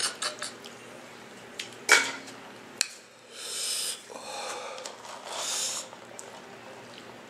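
Close-up eating sounds from a seafood boil: a few small clicks, a sharp knock of a dish or utensil about two seconds in, then two longer hissy sounds.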